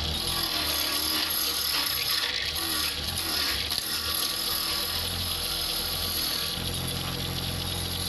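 Wood lathe running, with a hand chisel cutting into the spinning wood: a steady hiss of cutting over the low hum of the motor.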